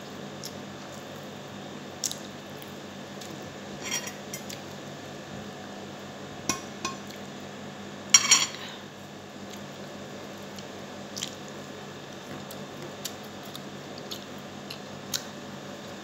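Scattered light clicks and taps of fingers and food against a ceramic plate while eating rice and pork adobo by hand, the loudest cluster about eight seconds in. A steady hum runs underneath.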